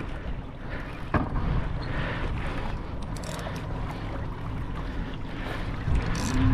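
Wind buffeting the microphone over the sea, with a steady low rumble and one sharp knock about a second in.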